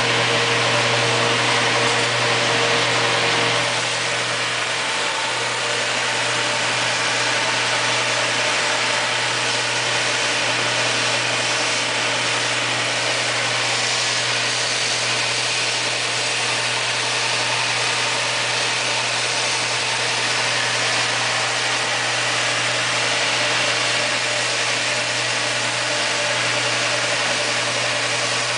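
Stationary feed-roller sander running steadily with a low hum and a broad hiss while a stack-laminated red birch ring is fed through and turned by hand to sand its bottom face. A little louder for the first few seconds.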